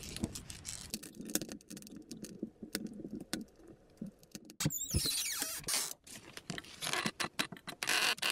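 Scattered clicks, knocks and rustling from someone moving about and handling things in a small log shelter, with a short creak about five seconds in.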